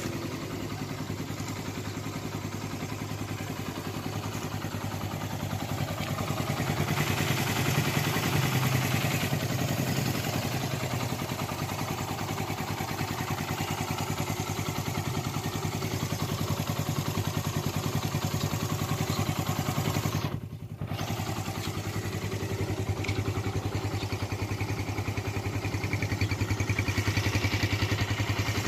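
Suzuki 125 cc motorcycle's single-cylinder four-stroke engine idling steadily, with a brief dropout in the sound about two-thirds of the way through.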